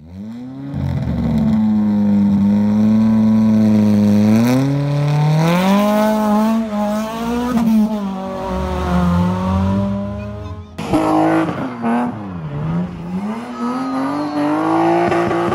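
Race car engine revving, its pitch gliding up and down; about eleven seconds in it changes suddenly to a BMW drift car's engine dropping in pitch and then revving back up as its rear tyres spin and squeal through a hairpin.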